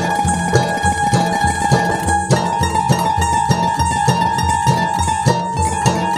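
Background music with a steady beat and a plucked-string melody.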